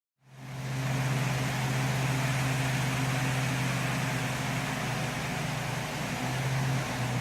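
Machinery running steadily with a low, even hum over a wash of noise, fading in over the first second.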